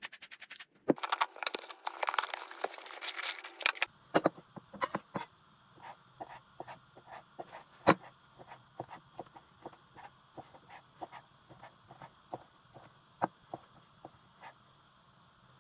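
A few seconds of dense rattling and rustling, then a knife chopping steadily on a cutting board, about two cuts a second.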